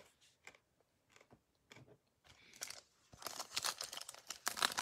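Faint clicks of trading cards being handled, then from about three seconds in the crinkling and tearing of a plastic trading-card pack wrapper being ripped open, loudest near the end.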